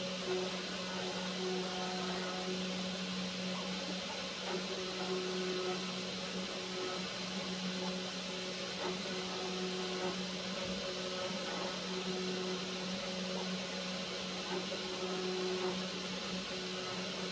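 Live-tooling spindle on a DIY CNC lathe running an end mill that mills the end of a metal bar: a steady motor hum with a few higher tones over a constant cutting noise.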